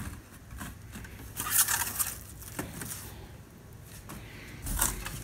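Plastic shrink wrap being cut and pulled away from a wrapped bundle of wooden chairs, crinkling and tearing in short bursts, the loudest about a second and a half in and another near the end.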